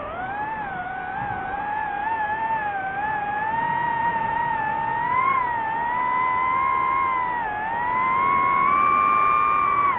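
DJI FPV drone's motors and propellers whining, the pitch gliding up and down with the throttle: it climbs about five seconds in, dips briefly near eight seconds, rises to its highest just after, and drops at the very end.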